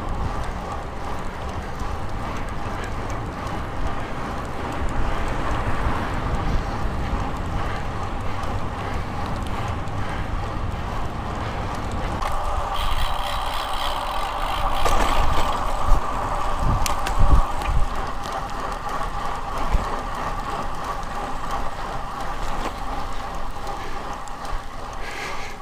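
Road bike riding on pavement, heard through a handlebar-mounted camera: steady wind buffeting on the microphone with tyre and road noise, and a few knocks from bumps about two-thirds of the way through.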